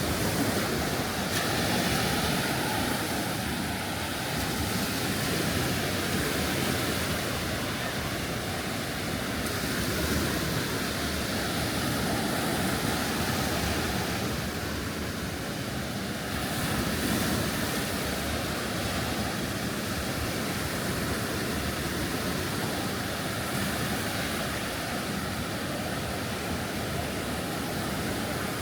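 Gulf surf washing onto a sandy beach: a steady rushing noise that swells and eases every few seconds.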